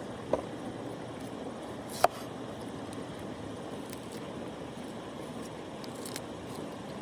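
Steady rush of a flowing river, with two sharp clicks or knocks, one about a third of a second in and a louder one about two seconds in.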